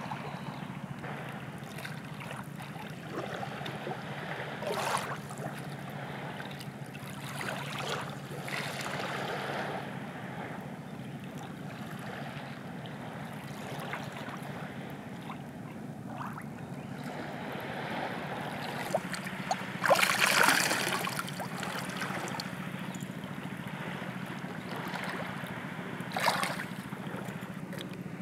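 Shallow sea water lapping around a rock, with a few splashes and wet handling noises as a squid is rinsed and cleaned, the loudest splash about two-thirds of the way through. A steady low hum runs underneath.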